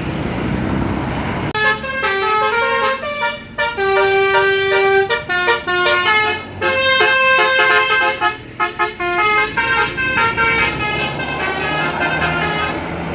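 A bus's basuri musical horn playing a tune of held notes that step up and down in pitch. It starts about a second and a half in, after a moment of road noise, and plays for about eleven seconds before fading.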